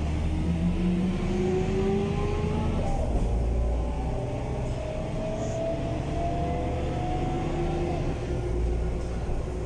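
Mercedes-Benz O345 city bus accelerating, its ZF 4HP-500 automatic gearbox whining with rising pitch over the engine's low running. The whine drops as the gearbox shifts up about three seconds in and again near the end, then climbs again.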